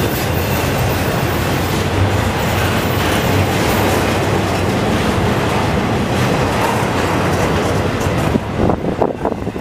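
Double-stack intermodal freight train's loaded well cars rolling past on steel rails, a loud, steady noise of wheels on track. Near the end it turns uneven and a little quieter.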